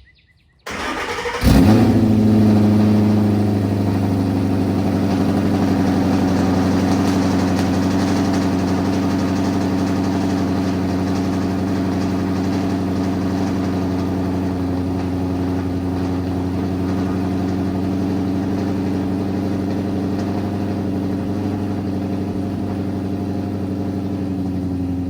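Ford Boss 302 Mustang's 5.0-litre V8 cold-started through aluminized-steel side pipes: the starter cranks briefly, the engine catches with a loud rev about a second and a half in, then settles into a steady idle.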